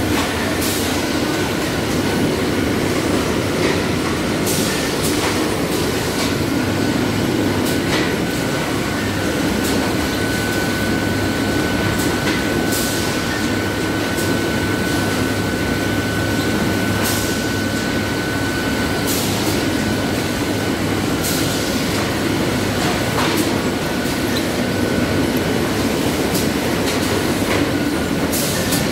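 GHD Hartmann Automat PP 30 pillow packaging machine and its plastic mesh infeed conveyors running: a steady mechanical clatter with short sharp clacks every few seconds at uneven spacing, and a thin steady high whine, strongest in the middle.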